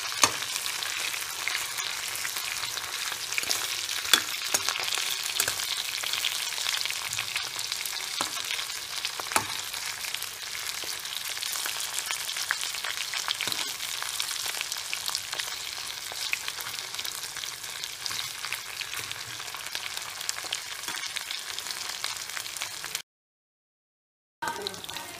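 Chicken lollipop pieces shallow-frying in hot oil in a kadai: a steady sizzling hiss with a few sharp clicks, the loudest about a quarter second in. The sound cuts out completely for about a second and a half near the end, then resumes.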